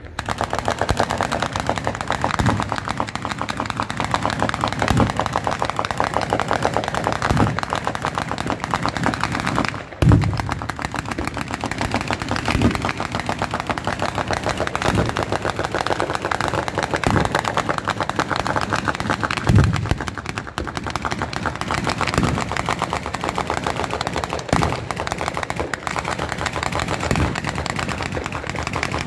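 Bolognese-style firecracker battery going off at ground level: an unbroken rapid crackle of firecrackers, like machine-gun fire, with a heavier bang about every two and a half seconds.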